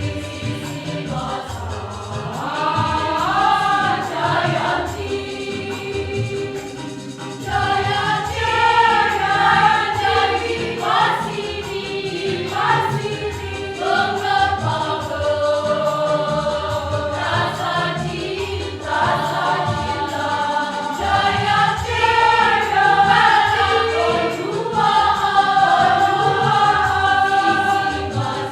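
Choir singing a song in several parts, the sound growing louder about seven seconds in.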